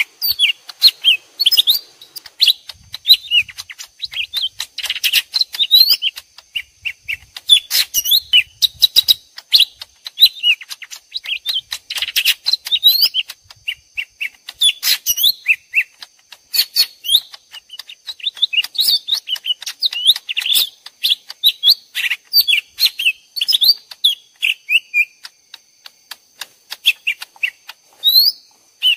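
Lesser green leafbirds (cucak ijo mini) calling back and forth in quick, dense chattering chirps, like two birds fighting: a lure call mixed for trapping this species. A faint steady high whine runs behind the calls.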